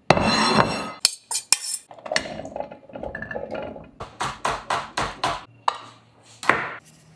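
Kitchen clatter of a meal being plated: a ceramic plate and cutlery clinking and scraping. A quick run of sharp taps comes about four seconds in, and a last clink near the end.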